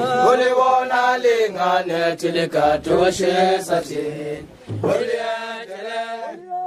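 A group of voices chanting together in traditional Zulu style, held pitches changing every fraction of a second, fading out near the end.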